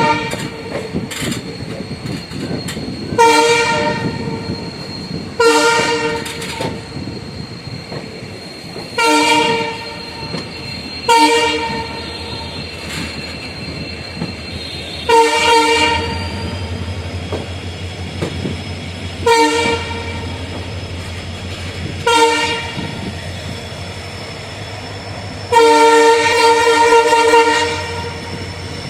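WDP-4 diesel locomotive's horn sounding again and again in short blasts a few seconds apart, with a longer blast of about two and a half seconds near the end. Between the blasts the train's running noise continues steadily.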